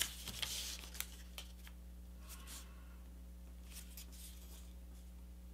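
A sheet of printer paper rustling and crinkling as it is folded and creased by hand, with a couple of sharp taps in the first second and a half and fainter rustles later.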